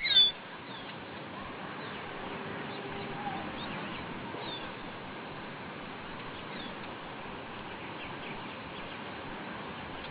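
A bird's short, loud call right at the start, then a few faint scattered chirps over a steady background hiss.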